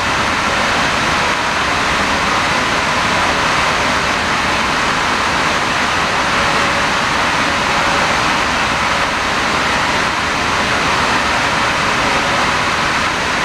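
Steady, loud background noise of an industrial process plant: an even hiss with a faint hum beneath it that does not change.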